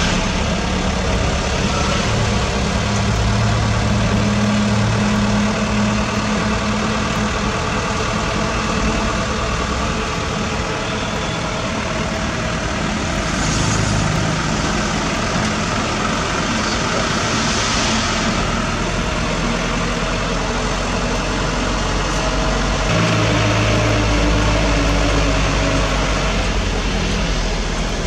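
Diesel truck engine running, its pitch shifting a couple of times, with two short hisses around the middle.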